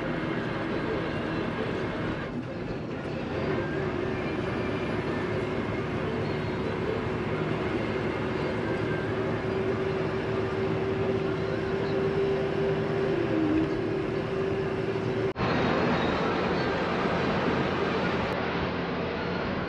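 Bus on the move: steady engine and road rumble, with a held whine from about three seconds in. The sound breaks off abruptly about fifteen seconds in, then the same rumble carries on.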